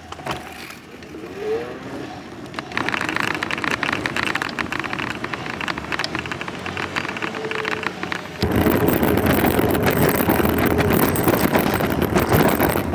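Bicycle riding picked up by a camera mounted on the bike: the frame rattling over the road surface with wind on the microphone, which turns much louder and deeper about eight seconds in.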